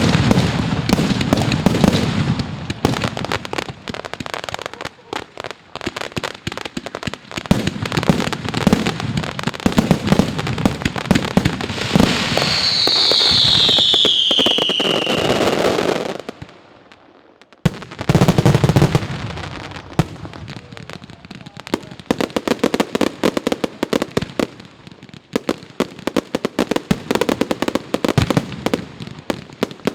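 Fireworks display: a dense run of rapid crackling and popping shells, with a falling whistle about halfway through. After that comes a brief lull, then a sharp bang and more crackling.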